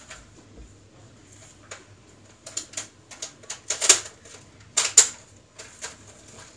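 An irregular run of short sharp clicks and knocks, starting about two and a half seconds in, with the two loudest knocks about a second apart near the end.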